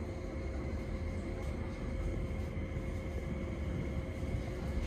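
Interior running noise of a Keio 5000 series electric train in motion: a steady low rumble of wheels on the track with a faint steady whine.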